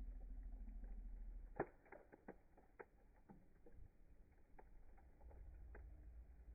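Fire crackling faintly: scattered soft pops and clicks, one sharper pop about a second and a half in, over a low rumble that comes and goes.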